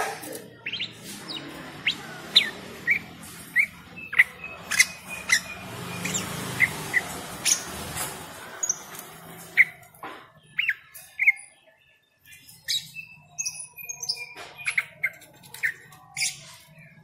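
Caged jalak koci starling calling in short, sharp chirps repeated many times, with a brief lull about two-thirds of the way through. A steady background hiss runs under the first half.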